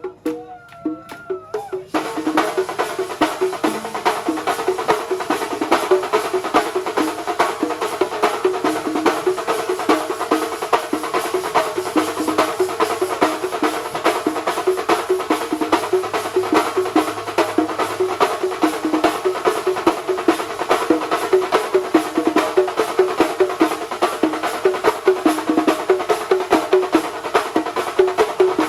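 Kerala thambolam band playing: a fast, continuous drum rhythm under a steady pitched melody line. For the first two seconds only a softer melodic part with a sliding pitch is heard, then the full drums come in.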